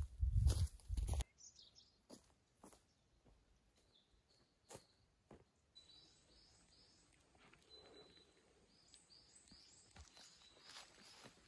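Heavy footsteps on the leaf-littered forest floor in the first second, with a few faint crackles afterwards. From about six seconds in, a songbird calls in a quick run of short high notes, and leaf litter crunches underfoot near the end.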